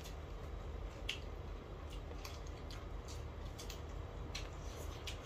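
Close-up eating sounds: wet chewing and lip smacks while eating rice and leafy greens, heard as scattered soft wet clicks over a low steady hum.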